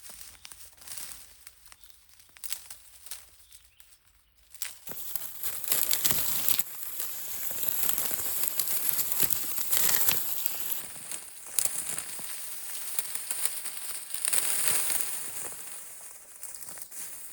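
Rustling and crinkling made up of many small cracks. It is faint at first and turns loud and busy about five seconds in.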